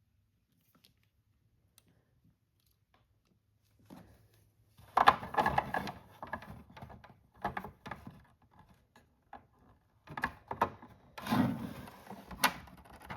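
Near silence for about four seconds, then plastic toy barn parts being handled and fitted together: irregular clicks, knocks and rustling.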